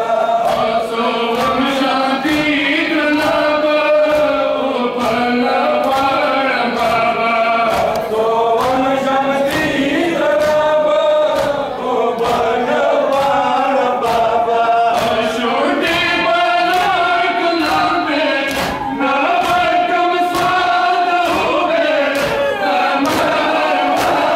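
A crowd of men chanting a noha (Muharram lament) in unison, kept in time by a steady beat of hands slapping bare chests in matam.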